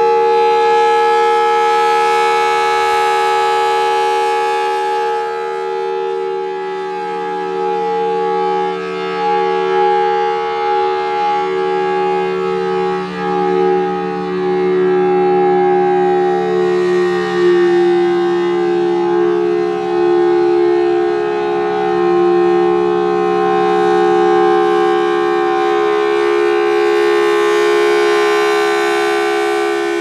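Federal Signal Thunderbolt 1003 rotating civil-defense siren sounding a steady alert tone made of several held tones together, rising and falling in loudness as the horn turns. The pitch sags noticeably a little past halfway and stays lower: this is an ailing ("sick") siren whose pitch drops and wavers during the test.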